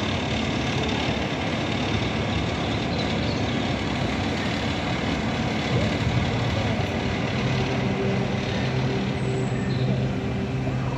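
Steady mechanical rumble with a low hum, holding level throughout.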